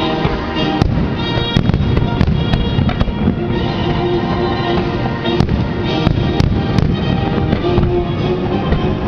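Fireworks display: aerial shells bursting in an irregular series of sharp bangs, a dozen or more, over music with sustained tones playing along.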